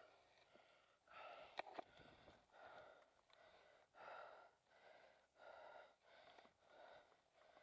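Faint, fast and regular panting of an out-of-breath dirt-bike rider close to the microphone, one breath sound roughly every three-quarters of a second.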